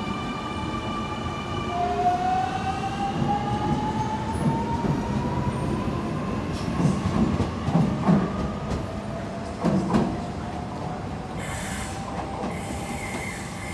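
Double-deck electric suburban train pulling out of the platform and picking up speed: its motor whine rises slowly in pitch. The wheels knock over rail joints a few times a little past halfway.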